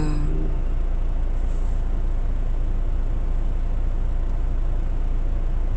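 Steady low rumble of a car engine idling, heard from inside the cabin.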